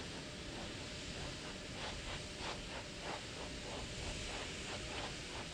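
Steady hiss of an old broadcast recording, with faint regular ticks, about three or four a second, through its second half.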